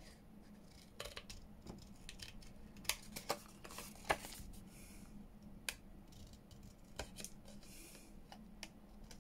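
Scissors snipping paper in short, irregular cuts, fussy-cutting around a paper image, with brief soft paper rustles in between.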